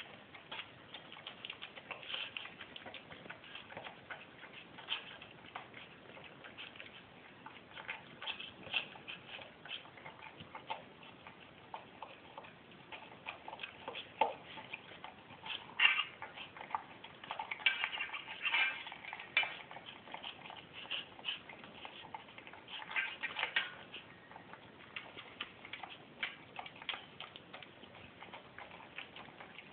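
A dog eating watered-down food from a metal bowl: irregular wet smacking, licking and chewing clicks, with tongue and food tapping against the bowl, coming in a few busier spells in the second half.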